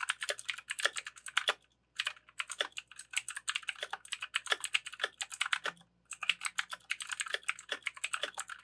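Fast typing on a Pictek PC335A 60% mechanical keyboard with clicky Otemu blue switches: a dense run of sharp clicks, broken by two short pauses, about two seconds in and about six seconds in. The clicks carry an echo that the owner puts down to the hollow plastic case.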